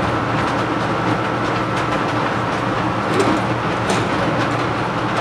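A 2-foot by 2-foot laminar flow hood's blower running steadily with a low hum and a rush of air, with a few light clicks of plastic petri dishes being handled.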